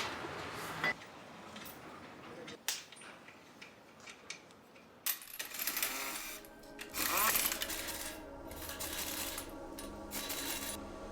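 Scattered light metallic clinks and knocks, with background music coming in about halfway through.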